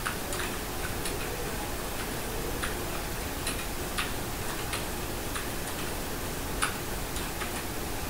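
HCL EzeeBee computer keyboard keys clicking as someone types slowly: irregular keystrokes, about two a second with a short pause a second or so in, over a steady hiss.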